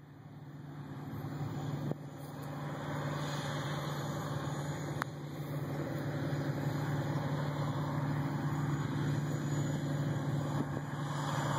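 Eight-cylinder 15.7-litre diesel of a big four-wheel-drive John Deere tractor working under load pulling a disk harrow: a steady low engine drone that grows louder over the first few seconds, then holds steady as the tractor approaches.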